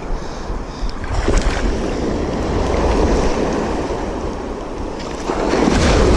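Surf breaking and washing on the shore, with wind buffeting the microphone; the wash swells louder near the end.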